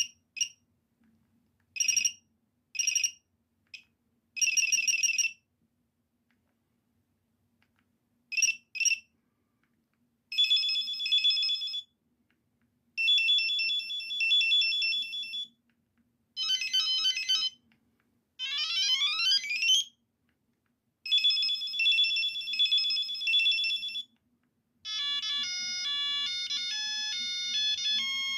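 A Qualcomm mobile phone's ringer playing one built-in ringtone after another, each separated by a short gap. The ringtones include short electronic beeps, steady trilling rings, a run of rising sweeps, and a multi-note melody near the end.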